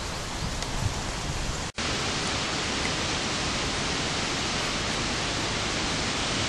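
Steady rushing hiss with no distinct events. It turns louder and brighter after a sudden break about two seconds in.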